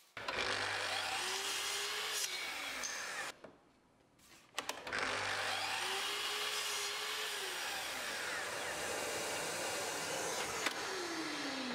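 Mitre saw run twice: each time the motor whines up to speed, runs through a cut in a thin wooden rod, and winds down as the blade is left to stop before the saw is raised. The second run is the longer one, and its falling whine trails off near the end.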